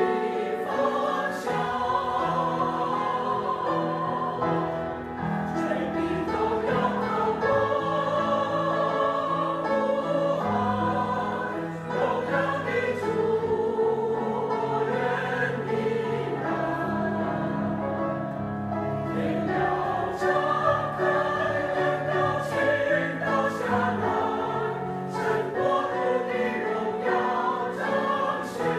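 Choir singing a slow, sustained hymn-like piece, with many voices holding long notes in harmony.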